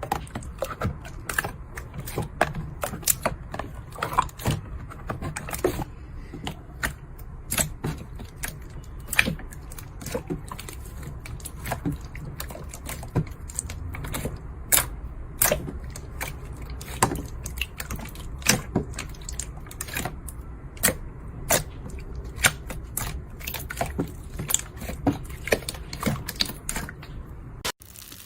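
Slime being poked and squeezed by hand, with sharp irregular clicks and pops of trapped air, several a second, over a low handling rumble.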